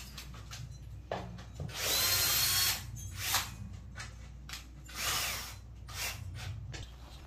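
Power drill running in short bursts, the longest for about a second, another winding down in pitch as the trigger is released, with scattered clicks and knocks of work between bursts.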